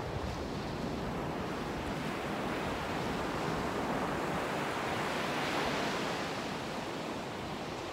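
Ocean surf washing onto a sandy beach in a steady rush that swells a little midway.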